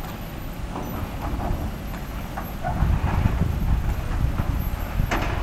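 Diesel engines of a Kobelco excavator and dump trucks running with a steady low rumble, under scattered knocks and clatter as the excavator loads sand and rocks into a dump truck's steel bed. One sharper knock comes near the end.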